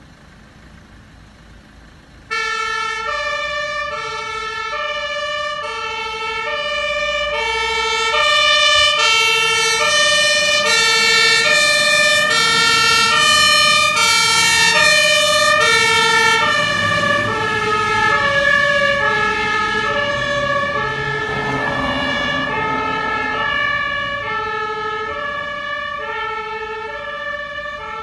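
German fire engine's two-tone siren (Martinhorn) sounding its alternating high-low 'tatü-tata', each note about half a second, switched on suddenly about two seconds in to signal an emergency run. The pitch drops slightly as the truck passes, about halfway through, with its engine rumble heard under it, and the siren then slowly fades.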